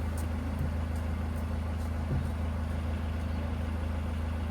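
A vehicle engine idling steadily, a low, even hum.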